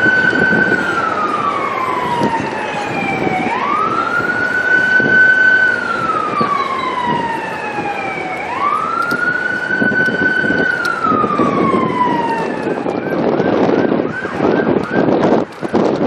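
Escort vehicle's electronic siren wailing in three slow cycles, each rising quickly, holding, then falling slowly, then switching to a fast yelp, about four pulses a second, for the last few seconds, over wind and road noise.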